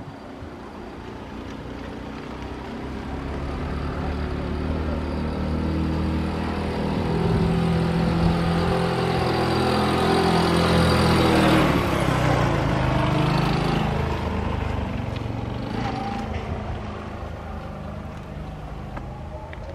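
A vehicle passing close by. Its motor hum builds over about ten seconds, peaks past the middle, then drops in pitch as it goes by and fades.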